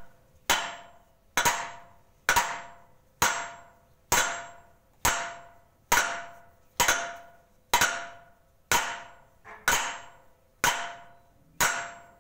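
Sledgehammer blows on steel, thirteen in a steady rhythm about once a second, each ringing on briefly before dying away. It is hammering on the head fastening of a Metso GP220 cone crusher during a mantle change, to tighten the check nut.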